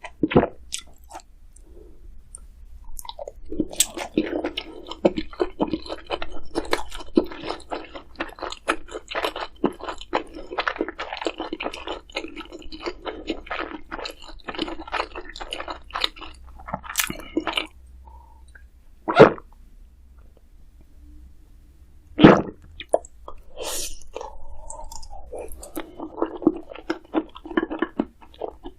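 Close-miked chewing of crunchy food, dense crackling bites in two long runs. Two sharp knocks, the loudest sounds, come in the pause between them.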